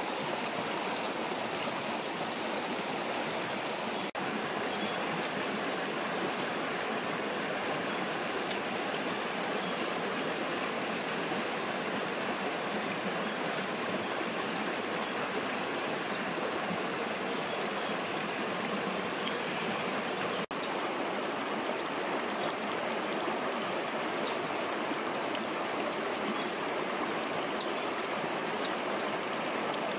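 River water rushing steadily over rocks, a continuous even hiss, with two very brief dropouts.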